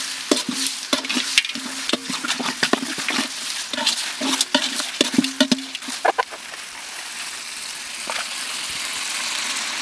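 A ladle stirs and scrapes onion, tomato and mint masala frying in oil in a large aluminium pot, with frequent clicks of metal on metal over the sizzle. The stirring stops about six seconds in, leaving a steady frying sizzle that slowly grows louder.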